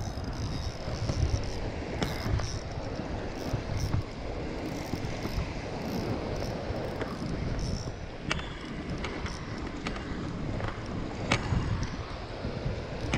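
Wind buffeting the microphone over small waves washing onto the sand, with a few sharp clicks and taps from handling the spinning rod and reel.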